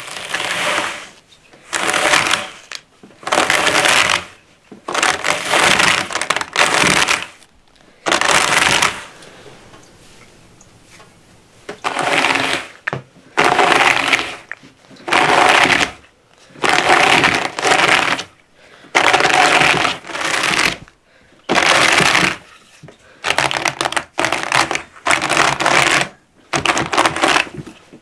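Wool being carded on a wooden box carder with nail teeth: the handled upper board is dragged across the wool on the nail bed in repeated scratching strokes, about one every one to two seconds, with a short pause in the middle.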